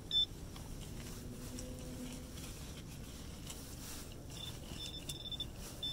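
Metal detector giving short high-pitched beeps: one right at the start, then a few faint ones about four and a half to five and a half seconds in, over low background noise.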